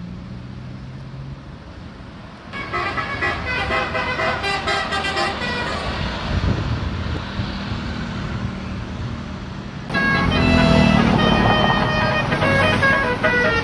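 Indonesian 'telolet' bus horns: multi-tone horns playing short stepped tunes over the noise of the bus engines. The first couple of seconds hold only engine hum. The horn tunes start about two and a half seconds in and grow louder from about ten seconds in.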